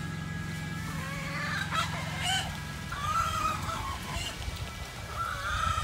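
Chickens calling, with clucks and a rooster crowing, over a low steady hum that stops about three seconds in.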